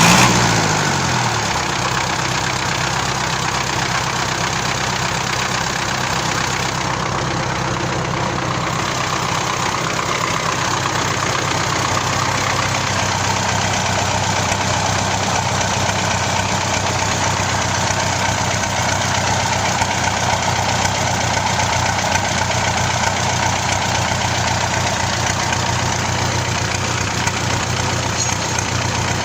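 MTZ-82 tractor's four-cylinder diesel engine idling steadily after its revs fall away at the very start.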